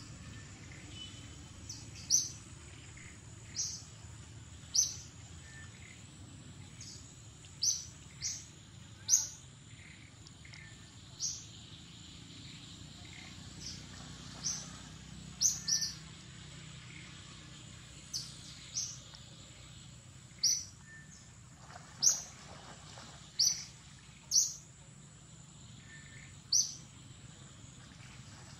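A bird's short, sharp, high-pitched chirps, repeated every second or two, over a faint steady high tone and a low background rumble.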